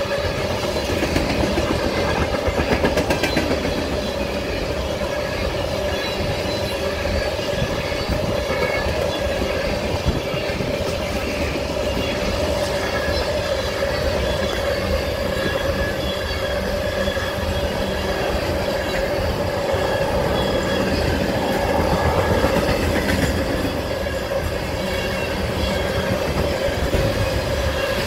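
Empty ethanol tank cars of a freight train rolling past at steady speed, wheels clicking over the rail joints, with a steady whine running under the rumble.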